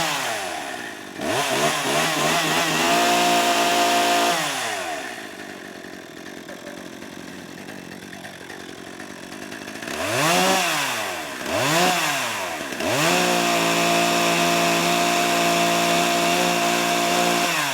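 Chainsaw engine revving: quick throttle blips, a short burst held at high revs, dropping back to a lower idle, then two more blips before it is held at high revs for about five seconds and falls away near the end.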